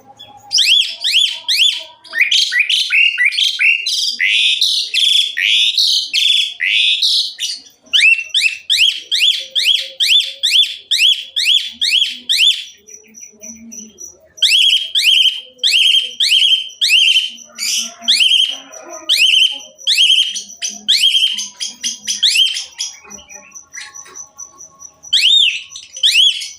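Asian pied starling singing loudly in full song: long runs of fast, downward-swept whistled notes, several a second, broken by brief pauses.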